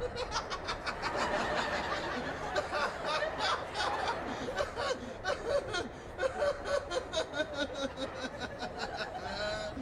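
Studio audience laughing and chuckling throughout.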